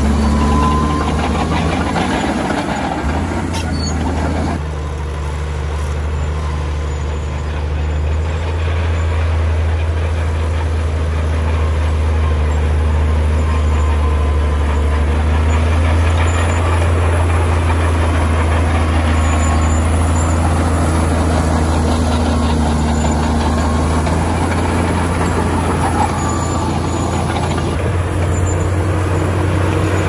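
A LiuGong crawler bulldozer's diesel engine runs steadily under load as the dozer pushes soil with its blade, giving a deep, continuous drone.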